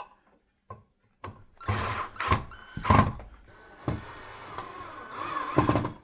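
Cordless drill driving screws up into a ceiling fan's mounting bracket. It runs in two short bursts, then in a longer steady run that grows louder and stops near the end, with a few small clicks of the bit and screw before it starts.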